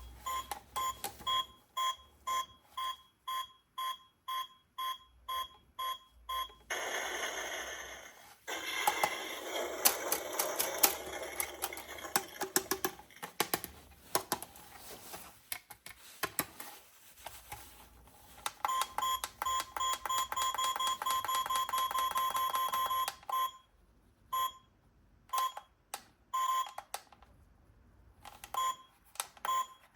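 Electronic beeps and sound effects from a toy gun: short two-tone beeps about twice a second, then a long stretch of crackly noise with rapid clicks. After that comes an unbroken run of fast beeps, and scattered beeps near the end.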